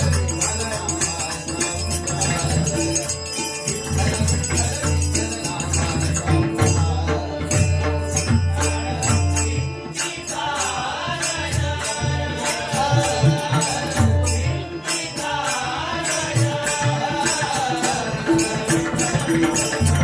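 Bhajan music in the dindi gajar style: taal hand cymbals clashing in a fast, steady rhythm over a deep drum, with voices chanting. A wavering sung line stands out about halfway through, while the drum briefly drops out twice.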